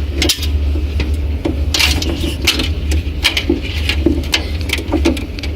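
Launderette washing machine running with a steady low hum, and irregular sharp spitting and clicking sounds over it.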